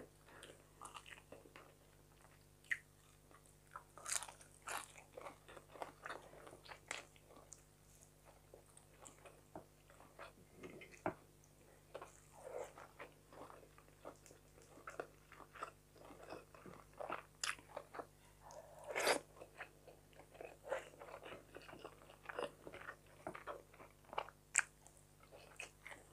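Quiet eating sounds of someone chewing fried fish picked off by hand: scattered soft crunches, smacks and clicks.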